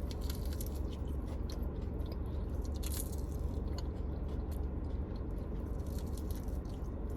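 Biting into and chewing a crispy fried chicken wing: irregular crunches and chewing sounds over a steady low hum.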